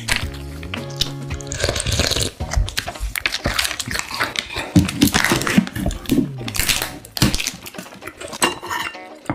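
Background music at first, then plastic packaging crackling and clicking as the film lid is peeled off a plastic food tub and the tub is handled.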